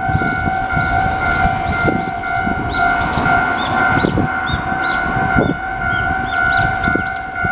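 Japanese railway level crossing alarm ringing its loud electronic warning tone, which repeats steadily.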